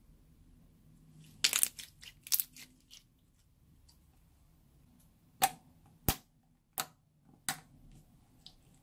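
Clear slime being worked by hand, popping: a quick cluster of sharp pops and clicks about a second and a half in, then four single sharp pops about two-thirds of a second apart.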